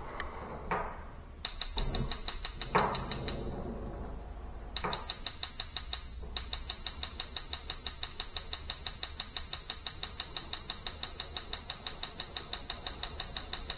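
Gas range's electronic spark igniter clicking rapidly, about five clicks a second, while the burner knob is held at light. It runs for a couple of seconds, stops briefly, then clicks steadily on. Gas has just been turned back on, so the burner is being held open to bleed air from the line.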